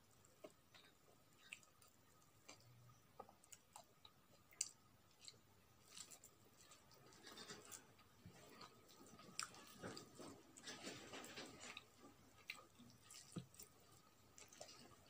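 Faint eating sounds of a person eating rice and curry by hand: soft chewing and small wet mouth clicks, with fingers working food on the plate. The chewing thickens for a few seconds in the middle.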